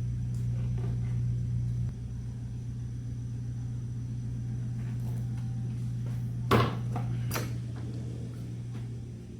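Steady low hum in a woodworking shop, with two sharp knocks about a second apart, the first loud, roughly two-thirds of the way through.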